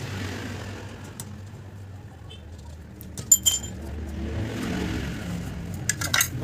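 Two sharp metallic clinks with a brief ring about three seconds in, then a quick cluster of clicks and taps near the end, over a low steady hum.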